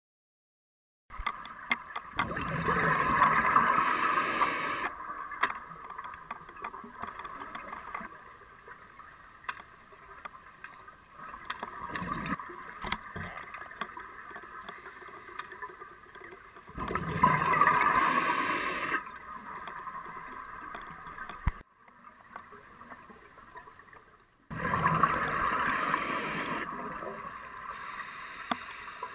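Scuba diver's open-circuit regulator breathing recorded underwater: bursts of exhaled bubbles lasting two to three seconds, three loud ones and a weaker one, with quieter hiss between breaths.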